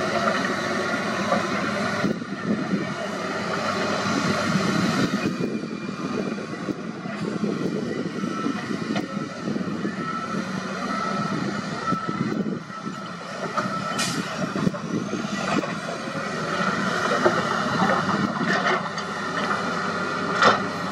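Wheel loader's diesel engine working under load as it pushes soil and rock, a steady heavy machinery rumble. A sharp clank about two-thirds of the way through.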